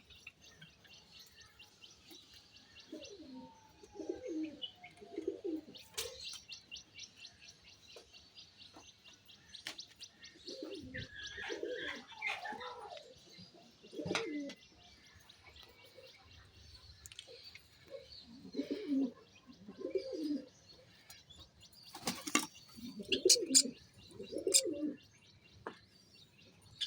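Java sparrows chirping in quick runs of high ticking notes, while pigeons coo in low, repeated phrases several times. A few sharp clicks come in between.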